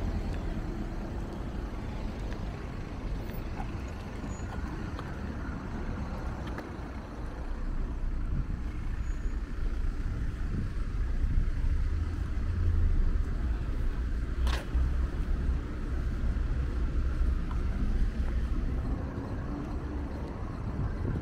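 Road traffic on a busy city street: a steady low rumble of passing cars that grows louder past the middle. Near the end one vehicle's engine rises in pitch as it accelerates. There is a single sharp click about two-thirds of the way through.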